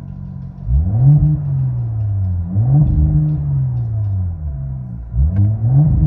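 2024 Cadillac CT5-V's 3.0-litre twin-turbo V6 with straight pipes, heard from inside the cabin, revved in Park: three quick blips, each rising sharply and then sinking slowly back toward idle.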